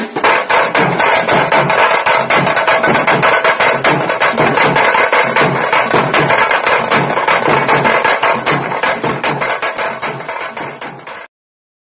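Intro music of fast, busy drumming with a steady pulse underneath, cutting off suddenly shortly before the end.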